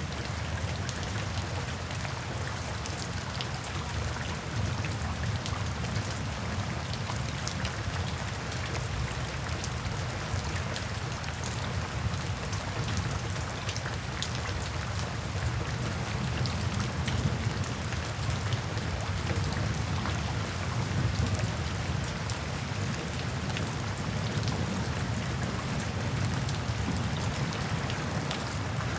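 Steady rain falling on a tin roof, with many separate drops striking the metal and a steady low rumble underneath.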